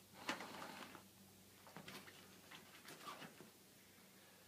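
A pause in blowing up the folding kayak's air chamber by mouth. A sharp click just after the start, then a few faint clicks and rustles from handling the inflation tube and its valve, with a short squeak about three seconds in.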